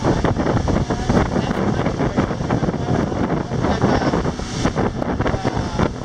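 Wind buffeting the microphone over the steady run of a small open tour boat's motor.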